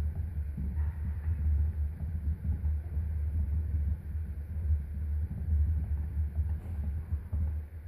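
Hamster running in its plastic exercise wheel, which gives a steady, fluttering low rumble that stops right at the end.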